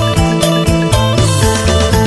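Isan phin, the Thai-Lao plucked lute, playing a lively instrumental tune over a low bass line that slides between notes and a steady beat.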